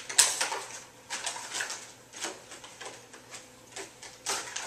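Cardboard box and plastic packaging being handled as a small power inverter is unpacked: a series of short clicks, rustles and scrapes, the sharpest about a quarter second in.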